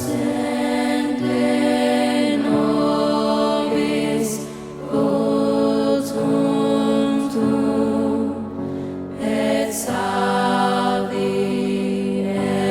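Slow sacred song, voices singing long held chords that change every second or two.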